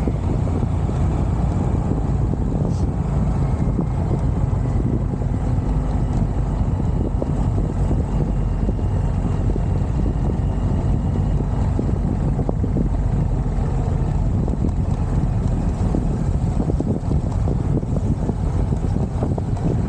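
Steady wind buffeting the microphone, a loud, even low rumble with no distinct engine note.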